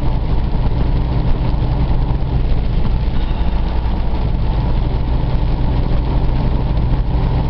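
Steady drone of a Freightliner Cascadia semi truck's engine and tyres on a wet highway, heard from inside the cab while driving in heavy rain.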